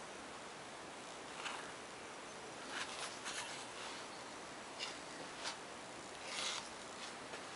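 Quiet room tone with a steady hiss, broken by a few faint short rustles and soft clicks from handling of the handheld camera as it pans.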